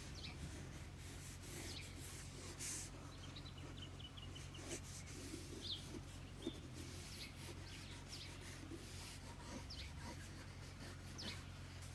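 Pencil lead scratching on paper in short strokes, with small birds giving short high chirps now and then and a quick trill about three seconds in, over a steady low hum.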